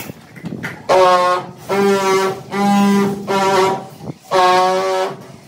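A horn sounding in a run of long blasts at one steady pitch, about five within a few seconds with short gaps between.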